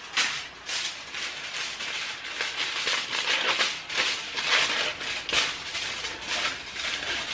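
Sheet of regular aluminium foil crinkling and crackling irregularly as it is handled and folded.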